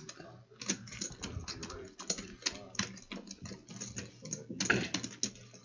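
Rapid, irregular light clicking, several clicks a second, with faint voices underneath.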